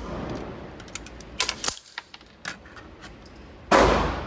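Metallic clicks and clacks of a 9mm firearm being handled, then a loud bang with a short echo near the end.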